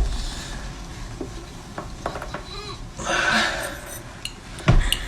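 Joints cracking: a few small sharp pops about two seconds in and more near the end, with a brief rush of noise around three seconds and a heavier thump shortly before the end.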